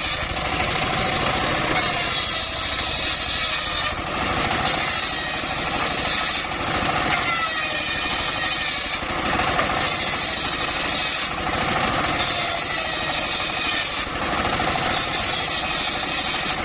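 Engine-driven homemade circular sawmill running steadily, its sound turning brighter and duller every couple of seconds, with faint sliding whines in between.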